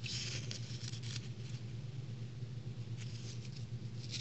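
Faint rustling and light handling of a folded paper sticker strip, over a steady low hum.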